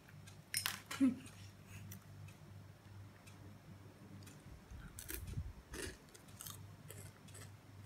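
A child chewing crunchy dried broccoli florets, with scattered short crunches.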